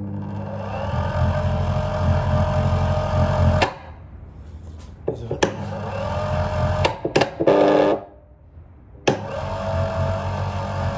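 Electric motor of a homemade plastic shredder switched on three times, each run a loud steady hum with a tone that climbs as it starts, and a sharp click as it is switched on and off. The owner takes the motor to be already failing.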